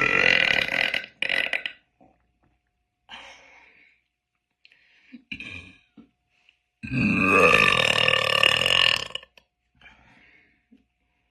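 A woman burping loudly: a long burp that ends about a second in, followed by a short one. After some softer sounds, a second long burp of about two seconds comes near the seven-second mark.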